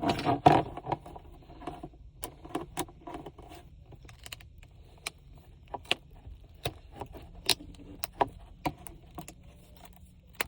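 Small hard objects clicking and clinking as they are handled, a dense clatter in the first second, then scattered single clicks and taps, over a low steady hum.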